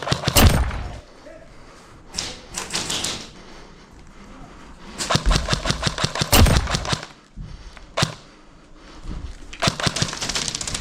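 Airsoft electric rifles firing several bursts of rapid shots, the longest about two seconds in the middle and another fast burst near the end.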